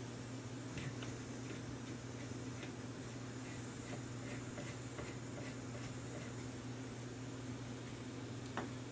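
Small, light clicks and ticks of wires and a soldering tool being handled against a hexacopter frame's circuit board, scattered through, with one sharper click near the end, over a steady low hum and hiss.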